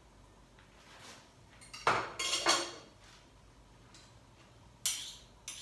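Cutlery clinking against dishes and a metal cooking pot: a short cluster of clatters about two seconds in, then two sharp clinks near the end.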